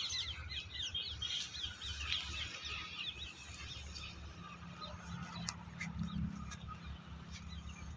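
Small birds chirping in quick, overlapping chirps, thick for the first three seconds or so and thinning out after, over a low rumble.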